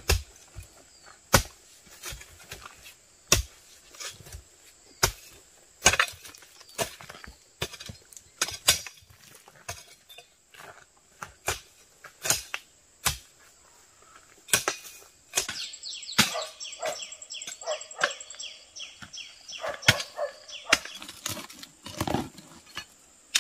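Repeated sharp knocks at an uneven pace, roughly one a second. After about fifteen seconds they give way to a busier stretch of clatter with some higher, squeaky pitched sounds.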